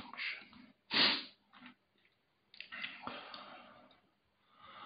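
A sharp, loud breath noise close to the microphone about a second in, followed by softer breathing that fades away.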